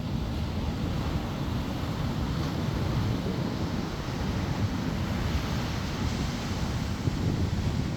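Wind buffeting the microphone: a low, uneven rushing noise with no breaks.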